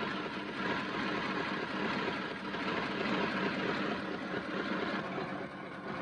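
Diesel engine running steadily.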